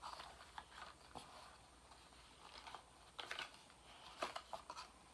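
Quiet handling noise: scattered small clicks and faint rustles of small items and packaging being handled by hand.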